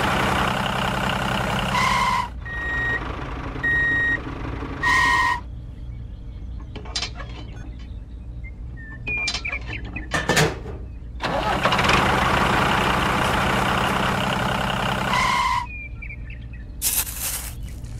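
Heavy vehicle engine sound running loud and rough, stopping about two seconds in. Short high beeps follow, and the engine sound runs again from about eleven to fifteen seconds in. A few sharp clicks or knocks come in between and near the end.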